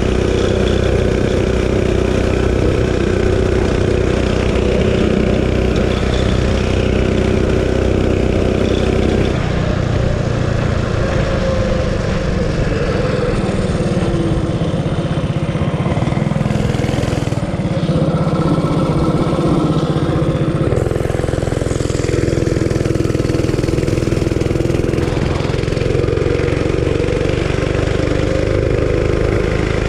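Realtree RT200 mini bike's single-cylinder engine, fitted with a stage 1 kit and a homemade exhaust, running while the bike is ridden. It holds a steady pitch at first, then about nine seconds in the pitch drops, and it rises and falls from there as the throttle is eased and opened again.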